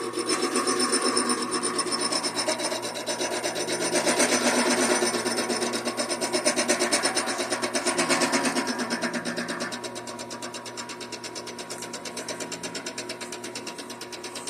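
Vevor 7x14 mini metal lathe running while its cutting tool faces off a piece of aluminium: a rapid, even rasping from the cut over the machine's steady hum. The rasping is loudest for the first ten seconds or so, then eases off with the lathe still running.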